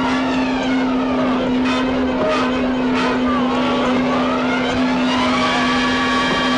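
Film sound effect of a crane's machinery: a steady low hum under overlapping rising and falling motor whines, with a few sharp clanks.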